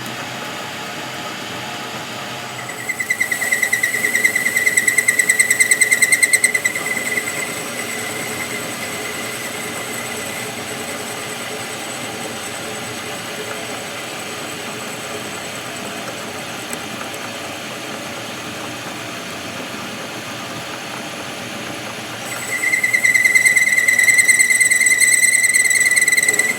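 A metalworking machine running steadily. Twice, for about four seconds each time (a few seconds in and again near the end), it turns louder with a high-pitched whine that has a fast flutter in it.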